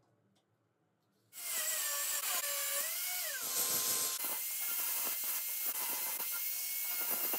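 Handheld angle grinder starting abruptly about a second in and grinding on a steel flat bar, its motor whine dipping and rising as the disc is loaded, then holding steady.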